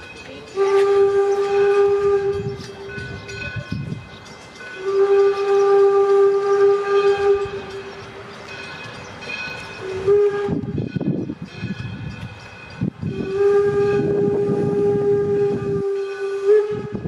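Steam whistle of Detroit & Lima Northern No. 7, a 4-4-0 steam locomotive, blowing two long blasts, one short and one long: the standard grade-crossing signal. The moving train rumbles underneath.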